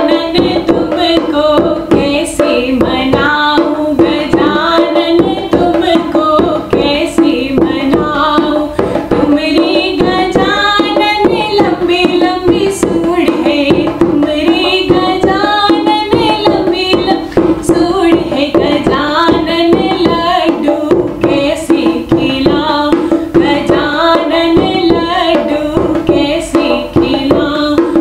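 A woman singing a Hindi devotional bhajan to Ganesh, accompanying herself with hand strokes on a dholak, a rope-tensioned two-headed barrel drum.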